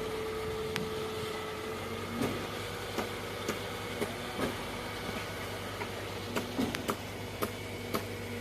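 Concrete pump running steadily with a low hum and a held tone, with irregular sharp clicks and knocks several times a second.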